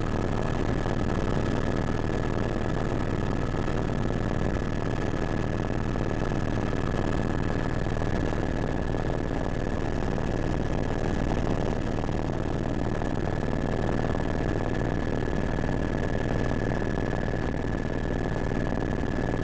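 Helicopter running steadily: a dense low drone with a steady high whine over it.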